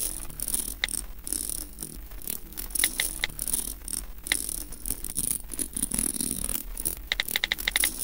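Electronic sound design of crackling clicks over a steady high hiss, with short high beeps here and there and a quick run of about eight beeps in the last second.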